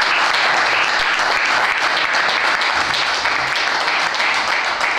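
Audience applauding, many hands clapping at once in a steady patter.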